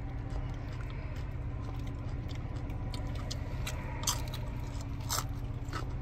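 Someone chewing and biting into food, with scattered short crunching clicks, the sharpest about four and five seconds in, over a steady low hum.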